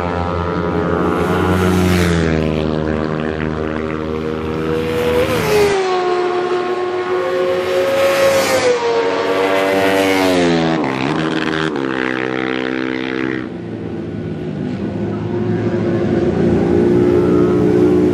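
Sport motorcycle engines revving hard on a race circuit, their pitch rising and falling through gear changes as bikes pass, with a quick dip and climb in pitch about eleven seconds in.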